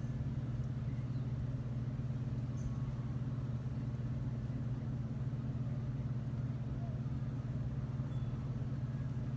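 Goodman packaged air conditioner's fan coasting after the unit has shut down, a steady low hum.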